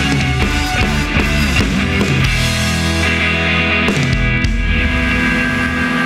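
Loud band music, rock-style, with drum hits for about the first two seconds, then settling into longer held chords.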